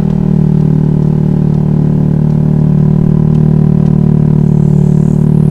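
Honda Vario scooter's single-cylinder engine running steadily while the scooter is ridden at an even speed.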